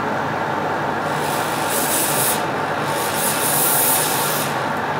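Hot air rework station blowing steadily on a graphics card's BIOS chip to melt its solder and lift it off. Louder hissing comes and goes, about a second in and again from about three to four and a half seconds.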